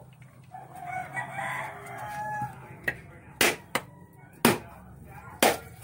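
A rooster crowing for about two seconds, then five sharp knocks, three of them loud, as a bolo knife strikes a husked mature coconut to crack its shell open.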